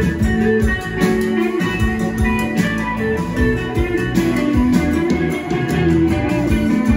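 Rock band playing live: electric guitar over keyboard, bass and a steady drum beat.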